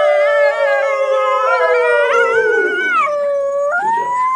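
A man and children howling together like coyotes: several long, wavering held calls that slide slowly downward, then one voice jumps up and holds a higher note near the end.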